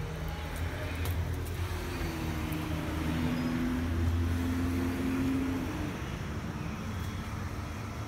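A motor engine running, a low rumble with a steady hum that swells about halfway through and then eases off.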